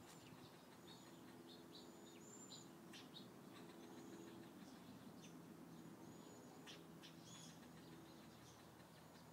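Faint, irregular short high chirps and clicks from a squirrel's alarm call, a squirrel scolding a nearby cat.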